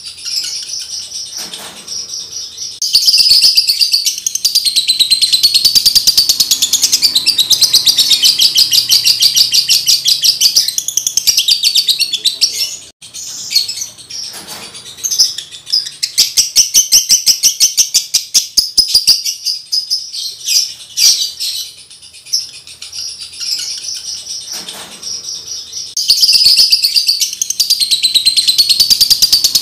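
Male lovebird in breeding condition singing: long, very fast, high-pitched chattering trills. They come in three loud stretches, with softer twittering between.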